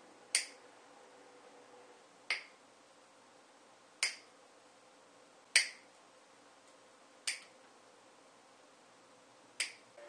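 Side cutters snipping the excess tails off plastic zip ties: six sharp snips, one every second or two.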